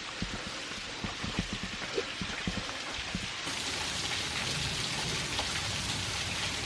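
Small double waterfall: an even, rain-like hiss of falling water that grows louder and brighter about halfway through. There are a few low knocks in the first few seconds.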